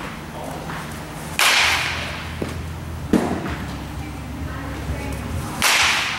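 Baseball bat hitting balls during batting practice, twice: a sharp crack about a second and a half in and another near the end, each trailing off over about half a second. A lighter click comes between them.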